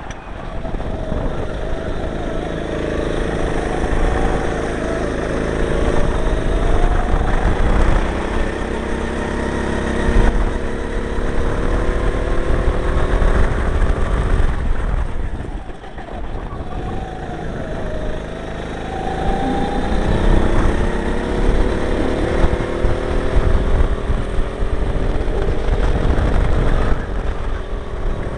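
Go-kart engine running hard on track, its pitch rising and falling as the kart accelerates and slows for corners, over a heavy low rumble. It drops off briefly about halfway through, then climbs again.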